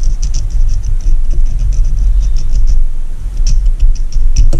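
Small metal pick clicking and scraping in the ring groove of an outboard piston, working at a piston ring stuck in its groove, over a steady low rumble.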